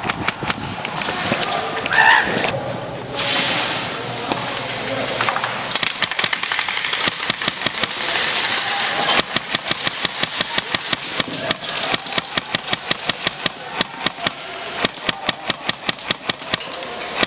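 Airsoft guns firing: a long run of sharp clicks and pops, dense through the first half and then settling into a regular three or four shots a second.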